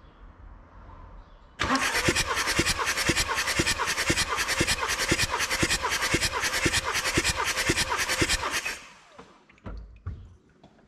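Starter motor cranking a VW 2.5 TDI five-cylinder diesel for about seven seconds without it firing, injectors unplugged for a compression test, with even pulses about three a second from the cylinders coming up on compression. A plop-plop-plop comes through the open ports, the manifold being removed. The suspect cylinder reads a healthy 25 bar on this crank.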